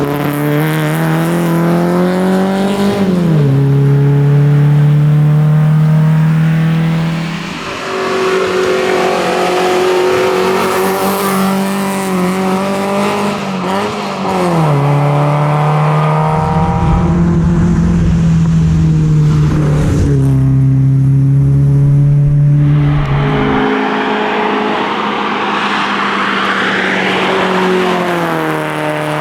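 A 1961 Volvo 122S's four-cylinder engine being driven hard. The revs climb steadily and drop sharply at each gear change, several times over.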